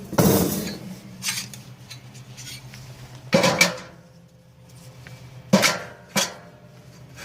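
Metal grill parts clanking and knocking against each other, five or so separate clanks with quieter stretches between.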